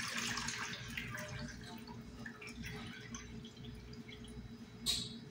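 Soy-sauce marinade draining from chicken gizzards through a metal mesh strainer into a stainless steel bowl: a trickle that dies down to scattered drips, with one short sharp clink near the end.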